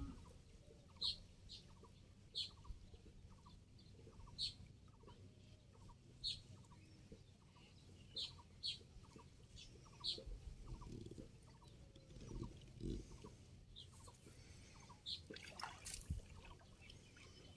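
Short, high bird calls repeating every second or two over a faint, evenly repeating chirping, with soft low water sloshing about two-thirds of the way through as a cast net is drawn through shallow water.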